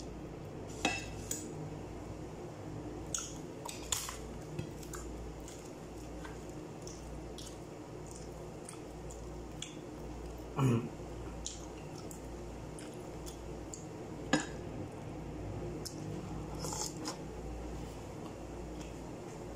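Eating goat trotter curry by hand from a glass bowl: scattered clinks and taps of fingers and bone against the glass, with wet squishing, over a steady low hum. A dull thump about ten seconds in is the loudest sound.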